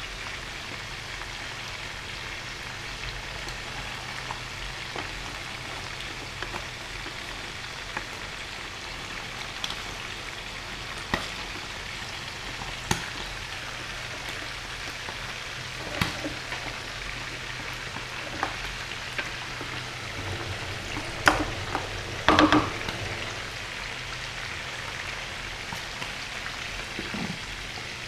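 Food sizzling steadily in pans, as chicken adobo is stirred in a metal wok with a wooden spoon, with scattered scrapes and taps of the spoon on the pan. A few louder knocks come a little past two-thirds of the way through.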